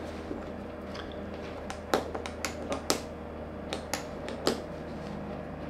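A small wooden automaton being worked by hand: about a dozen sharp, light clicks and clacks between about two and four and a half seconds in, as the spring-loaded pin is pushed in and out and the loose wooden fish segments knock on the box. A steady low hum sits underneath.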